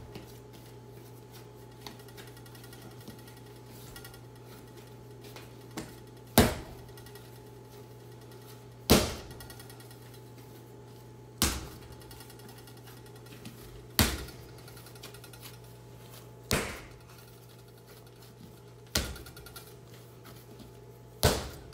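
Pizza dough slapped down onto a granite countertop and folded over by hand during slap-and-fold kneading: seven sharp slaps, about one every two and a half seconds, starting some six seconds in.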